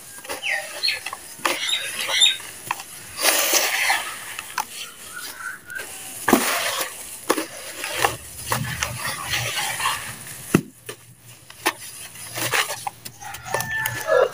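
Hands squeezing and crumbling clumps of damp dirt in a plastic basin: irregular gritty crunching and crackling with sharp little clicks as the clumps break and drop back. Near the end, dry grey powder is crumbled and sifted through the fingers.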